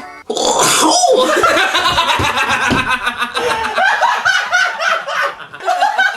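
Loud, hearty laughter from several people, bursting out suddenly just after the start and carrying on in rapid pulses throughout.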